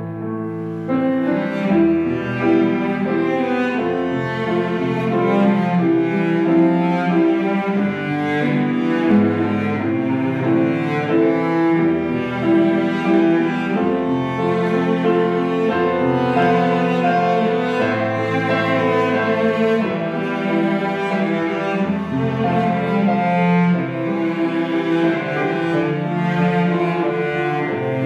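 Live instrumental music: a cello playing long held notes, with piano accompaniment.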